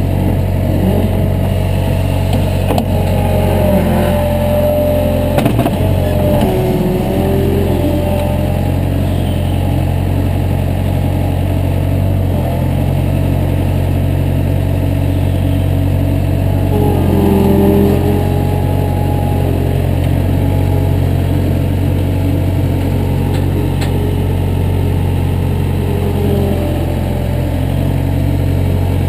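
An engine running steadily at an even speed with a loud, low drone. Brief higher wavering tones come in a few seconds in and again about halfway, where it gets slightly louder.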